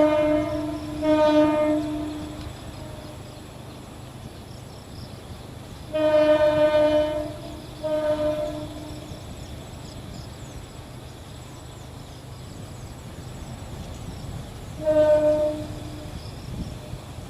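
Diesel locomotive horn sounding in short blasts: one dying away at the start and another about a second in, a pair about six and eight seconds in, and a single blast near the end, over a steady low rumble.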